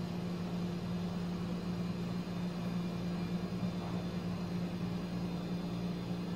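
A steady low hum over a faint even hiss: room noise, with no distinct event.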